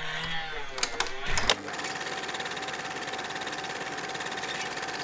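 Sound effect for an animated logo: a few sharp clicks, then from about a second and a half in a steady, fast mechanical rattle with a held tone, like a sewing machine stitching along the dashed lines.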